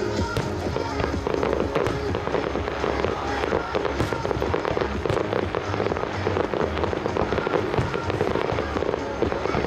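Fireworks display going off, a dense run of overlapping bangs and crackles, with music playing underneath.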